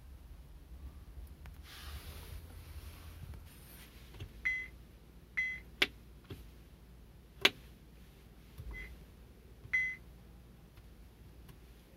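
A car head unit sounds four short, same-pitched key beeps as its buttons and touchscreen are pressed while reaching the touch-calibration screen. Two sharp clicks between the beeps are louder than the beeps.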